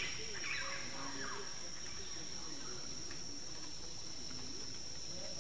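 Steady high-pitched drone of insects, with faint distant voices underneath.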